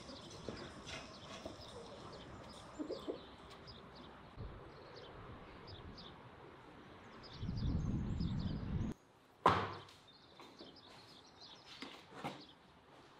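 Faint chirps of small birds over quiet outdoor ambience. Past the middle a low rumble lasts about a second and a half and cuts off suddenly, followed by a single sharp knock, the loudest sound.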